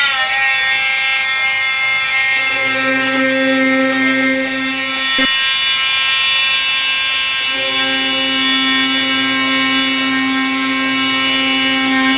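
Dremel oscillating tool with a half-moon blade starting abruptly and running at a steady high whine while cutting the edge of a plexiglass aircraft canopy. A lower buzz comes in twice, for a few seconds each time.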